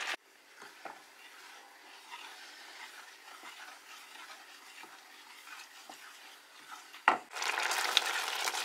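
Wooden spoon stirring thick peanut sauce in a metal cooking pot, a faint scraping with a few light knocks of the spoon against the pot. A sharp knock comes about seven seconds in, and a louder steady hiss sets in just after.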